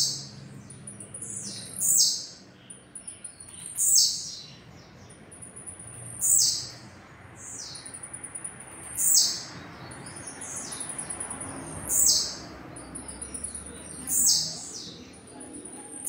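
Caged blue-black grassquit (tiziu) singing its short song over and over, about seven times, every two to three seconds: each a thin, very high note that drops quickly in pitch.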